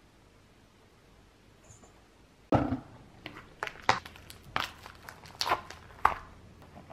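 After a quiet start, plastic cling wrap crackling and snapping in a quick, irregular run of sharp crinkles as it is peeled off sealed takeout food bowls.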